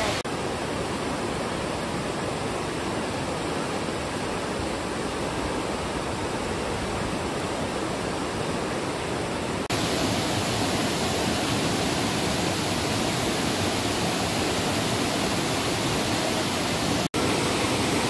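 Fast mountain stream rushing over rocks: a steady, even rush of water, briefly cut off near the end.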